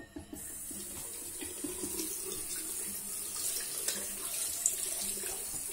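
Water running steadily from a tap into a sink, with a few faint clicks over it.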